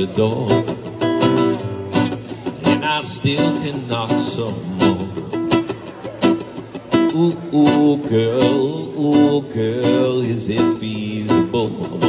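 Guitar music, plucked and strummed strings playing a song.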